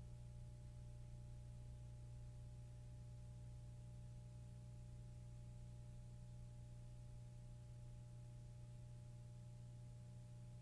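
Near silence: a faint steady hum with low hiss.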